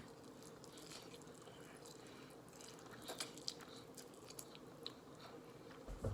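Faint chewing: a person eating noodles, with scattered small mouth clicks.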